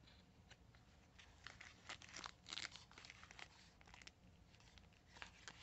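Faint crinkling and crackling of packaging being handled and unwrapped, in a run of small crackles about two seconds in and a few more near the end.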